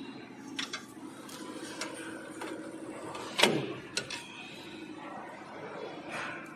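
Light metal clicks and knocks as a metal thread-stand frame is handled and set in place on the machine, with one louder knock about halfway through, over a steady low hum.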